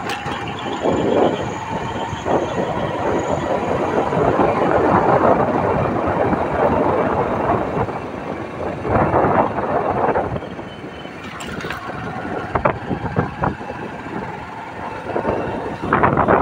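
Motorcycle riding along a road, its engine and rattle mixed with heavy wind buffeting on the microphone, the loudness swelling and falling.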